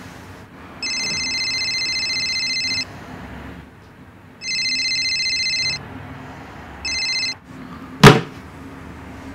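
iPhone ringtone for an incoming call: a trilling electronic ring in three bursts, the third one cut short. About eight seconds in, a single loud thud as the phone is put down hard on a wooden nightstand.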